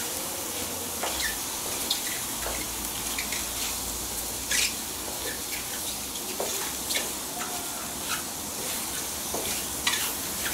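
Whole button mushrooms sizzling on a hot electric grill plate with a steady hiss, making small squeaks and whines as they cook, with scattered sharp clicks and pops.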